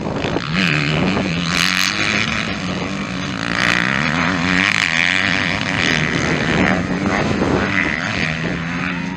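Motocross bike engines revving hard, the pitch climbing and dropping again and again as the riders open and close the throttle.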